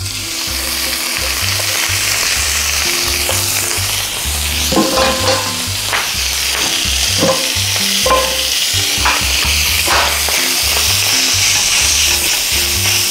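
Minced pork sizzling as it fries in a hot oiled frying pan over a gas flame, the hiss starting as the meat goes in, with a few scraping strokes of a spatula stirring it partway through.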